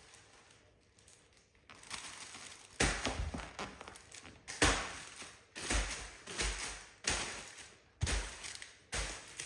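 Items and packaging being handled during an unboxing: a run of rustles and short knocks, starting after a second or two of near quiet.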